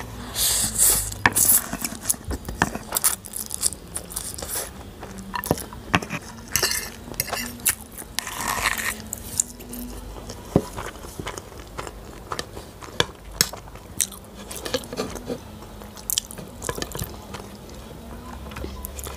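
Close-up eating sounds: masala Maggi noodles being slurped and chewed, with many sharp clicks of a fork against the plate.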